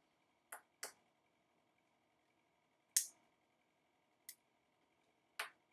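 Pocket lighter struck five times in short sharp clicks while lighting a cigar, the loudest about three seconds in.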